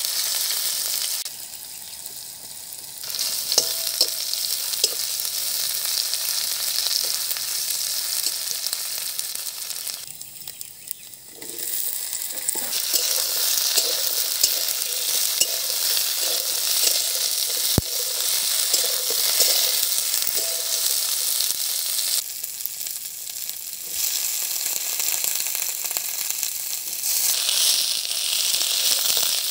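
Vegetables frying in hot oil in an aluminium kadai: a steady sizzle with small clicks and scrapes of a metal spatula stirring sliced onions, okra and brinjal. The sizzle drops away briefly three times, about a second in, near the middle and about three-quarters through, then comes back.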